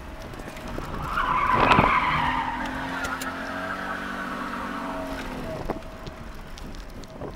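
Tyres of a rally Alfa Romeo 33 1.3 skidding and squealing, loudest about a second and a half in and dying away over the next few seconds, with the car's flat-four engine running beneath.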